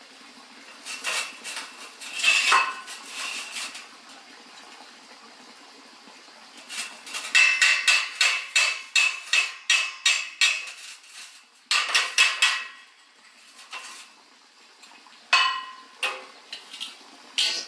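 Light metal-on-metal clinks and taps, coming in clusters, each with a short bright ring. There is a quick run of about three to four strikes a second in the middle, and single sharp knocks near the end.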